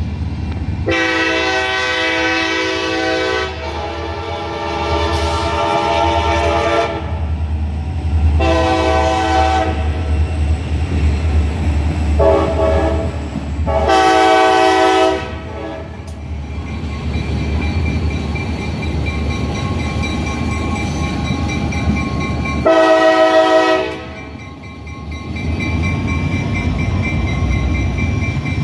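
Diesel freight locomotive's multi-chime air horn sounding a series of blasts: two long ones first, then several short ones, and one last short blast after a pause. A steady low locomotive engine rumble and rail noise run underneath.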